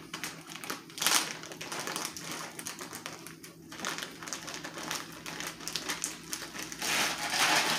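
Ice cubes clicking and rattling against each other inside a plastic zip-top bag, with the bag crinkling, as the bag of ice and salt is shaken and kneaded to freeze ice cream mix in an inner bag. The rattle gets louder and denser near the end.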